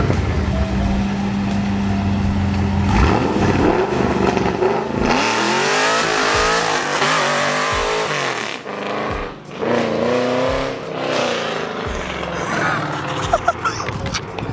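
Car engine idling steadily, then revved up and down several times.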